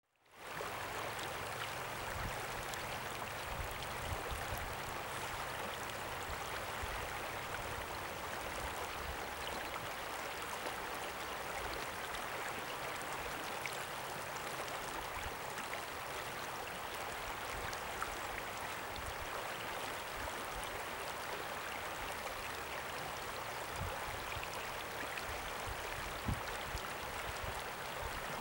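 Shallow river running over a riffle: a steady, even rushing of water, with a few soft low thumps and one brief sharper knock near the end.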